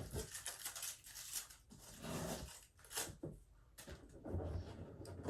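Packing tape being pulled and torn off a cardboard box, in several short ripping strokes with cardboard rustling between.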